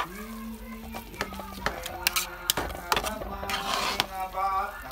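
Background music with held notes, over short clicks and scrapes of a metal spatula stirring sticky rice in a metal wok.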